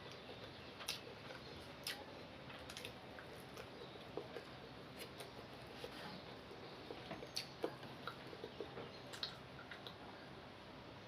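Quiet eating sounds: chewing and small scattered clicks and smacks as white rice is eaten.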